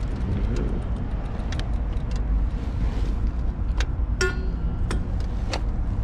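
Steady low rumble of road traffic, with scattered light clicks and a brief high-pitched tone a little after four seconds in.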